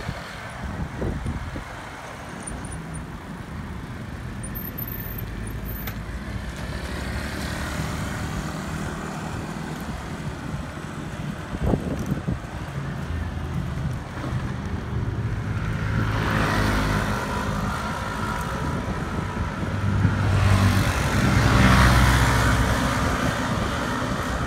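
Road traffic heard from a moving bicycle: motorcycle and car engines pass by, swelling louder twice in the second half, over a steady rumble of wind and road noise on the microphone. A brief knock sounds near the middle.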